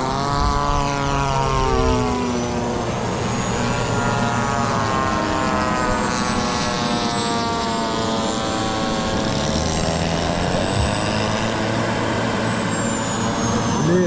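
Radio-controlled model aircraft engines: propeller model planes droning overhead, their pitch sliding down and back up as they pass, with the thin high whine of a model turbine jet that rises about halfway through and falls away near the end as the jet rolls down the runway.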